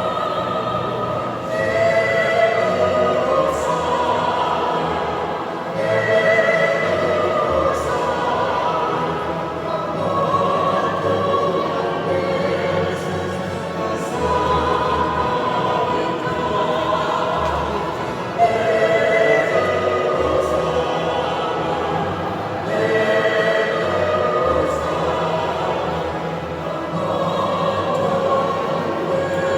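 A choir singing a slow piece in long held phrases, each lasting a few seconds.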